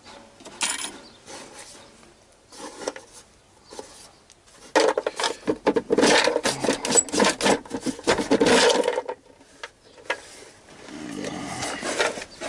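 Hands rummaging through a heap of old spare parts: small metal pieces clinking and scraping against each other. There are scattered clicks at first, then a dense stretch of rattling through the middle.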